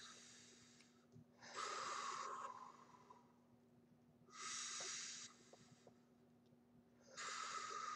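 Slow, deliberate deep breaths taken as a calming exercise. There are three airy rushes of breath, each about a second long, starting about one and a half, four and a half and seven seconds in, with quieter gaps between them.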